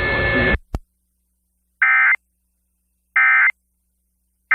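Emergency Alert System end-of-message data bursts from an FM broadcast: short buzzy warbling bursts about a third of a second each, spaced about a second apart, signalling the end of the alert. Just before them, the station audio cuts off about half a second in, followed by a click.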